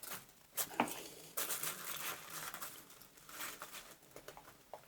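Rustling and crinkling of canvas and a thin plastic sheet being handled as kit is packed into a waxed canvas tool roll, with a few light knocks and clicks.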